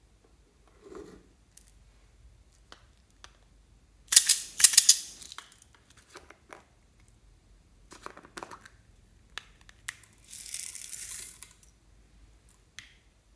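Small round plastic container handled and its lid twisted and pulled open, with a cluster of sharp plastic clicks and scrapes about four seconds in and a few more clicks later. Near the end a short hissing rattle as small clear beads are tipped out into a hand.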